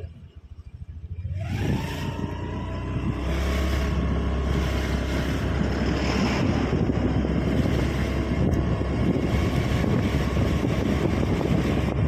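Motor scooter engine pulling away from slow riding: its whine rises about a second and a half in, then it runs steadily. Wind rumbles on the microphone throughout.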